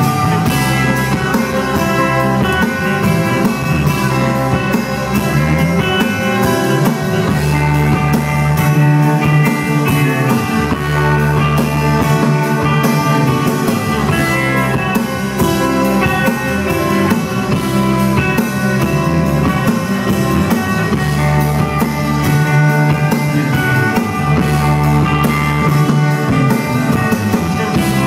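Psychedelic rock band playing live and loud: distorted electric guitars over a steady bass line and drum kit.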